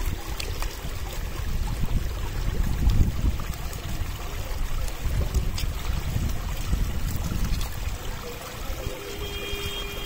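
Water flowing steadily through a narrow field channel, with a low rumble that swells and fades.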